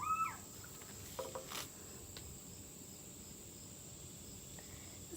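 Quiet room tone under a steady, faint high-pitched whine. A brief falling pitched sound comes right at the start, with a few faint ticks about a second in.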